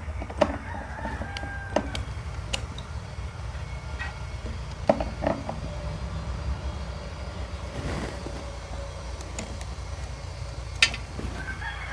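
Scattered light clicks and clinks of a saw chain and bar being handled while the chain is worked onto a small chainsaw bar, over a steady low rumble.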